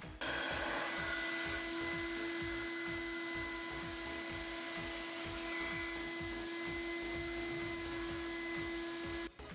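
A machine starts up just after the beginning and runs steadily with a loud even rushing noise and a constant hum, then cuts off suddenly near the end; background music with a beat runs underneath.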